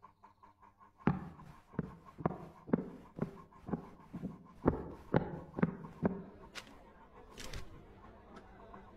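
Footsteps on a hard floor: about a dozen steady steps, roughly two a second, that stop about six seconds in. Then come two brief rustles of paper.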